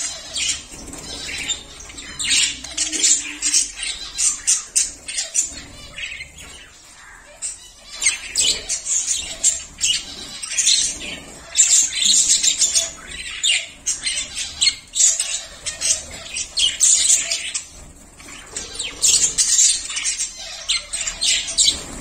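Flock of budgerigars chattering with rapid, high-pitched chirps and squawks that come in bouts, with short lulls between them.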